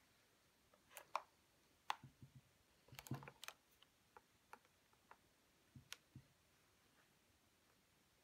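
Faint, scattered clicks and light knocks of a household iron being handled, set down and pressed over fabric appliqué pieces to fuse them.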